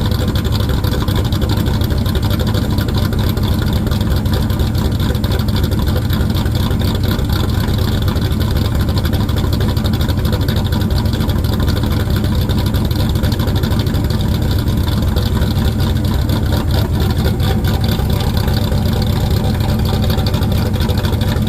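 1993 Chevrolet Camaro race car's LT1 5.7-litre V8 idling steadily, loud and even, with no revving.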